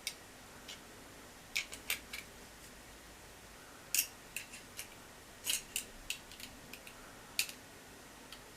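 Irregular sharp clicks and light taps of a compact deep fat fryer's bowl and housing knocking together as they are fitted.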